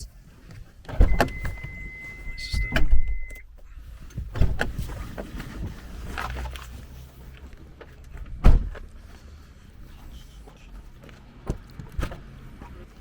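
Knocks, thumps and shuffling of someone moving about inside a parked car, with a steady beep lasting about two seconds near the start and one heavy thump about eight and a half seconds in.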